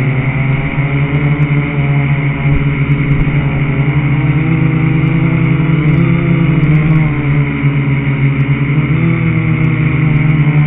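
Quadcopter's electric motors and propellers buzzing steadily, heard from a camera mounted on the craft, with the pitch wavering slightly around the middle and again near the end.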